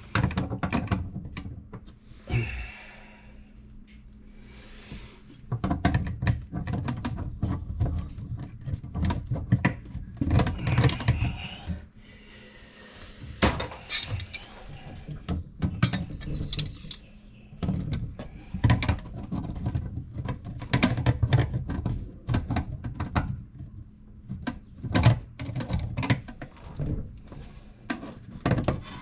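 Hand tools and metal plumbing fittings knocking, clinking and scraping at irregular intervals during work on washing machine supply valves.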